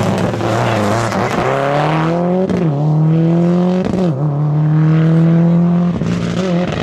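Rally car's engine accelerating hard through the gears. The pitch climbs steadily in each gear and dips at each upshift, with about four shifts in quick succession.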